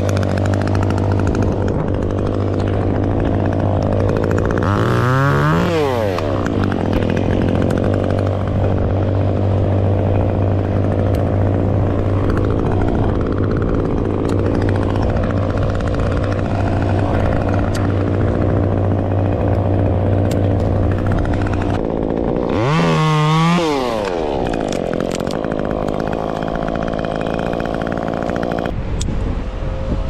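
Stihl top-handle two-stroke chainsaw idling steadily, revved up briefly twice.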